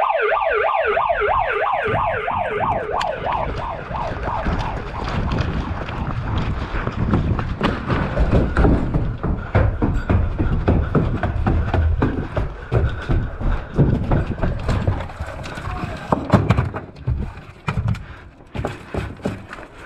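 An electronic siren wails in a fast, repeating rising warble for the first few seconds, signalling the start of the game. After that come steady rumbling noise and irregular thumps and clatter from people moving.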